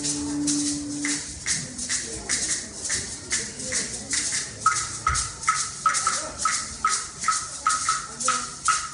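A shaker-like rattle keeps a steady beat of about two to three strokes a second, with a held low note that stops about a second in. From about halfway, a short high tone sounds with each stroke.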